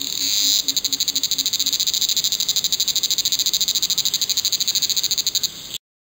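Cicada song: a loud, high buzz that turns into a rapid, even pulsing about half a second in, then cuts off suddenly near the end.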